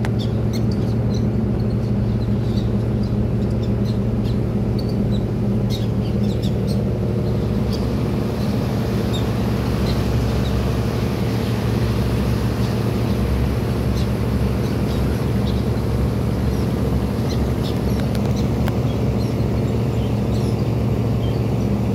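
Ship's engine running steadily with a constant low drone, heard on deck with wash and wind noise, and a few short high bird chirps scattered through it.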